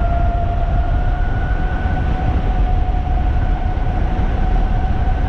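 A 3,000-watt electric bike's motor whining steadily at speed, its pitch creeping slightly upward, over heavy low wind rumble on the microphone while riding.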